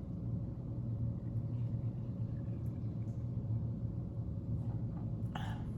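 Steady low hum with one short mouth sound near the end, as a woman drinks seltzer water.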